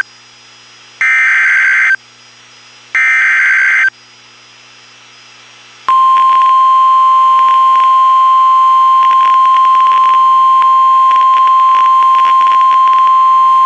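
Emergency Alert System broadcast from NOAA Weather Radio: two of the three digital SAME header bursts, each about a second of buzzing data chirps with a second's gap between them. About six seconds in, the single steady 1050 Hz weather-radio warning alarm tone starts, over radio static, announcing that a warning message follows.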